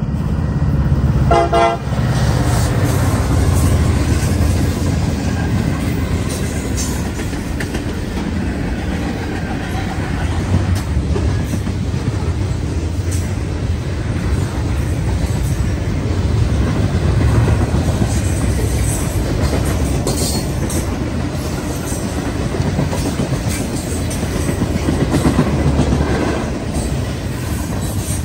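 A diesel-hauled freight train passing close by, with a steady low rumble of locomotives and then freight cars rolling along the track. The locomotive horn gives a short toot about a second and a half in.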